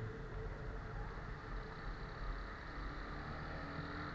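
Benelli TNT 15 motorcycle, a 150 cc single, running at a steady cruise of about 35 km/h on a wet road. A low engine hum sits under a steady hiss of wind and tyres.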